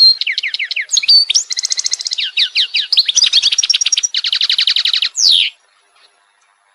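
A small songbird singing loudly in quick varied phrases of rapid trills and repeated down-sweeping notes, cutting off abruptly about five and a half seconds in.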